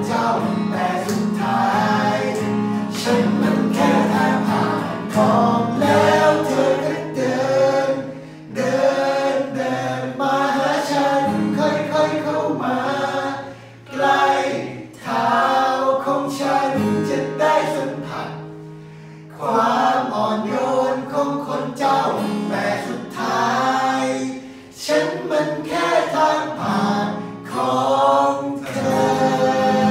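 Several male voices singing a Thai song together in harmony, accompanied by an acoustic guitar playing chords.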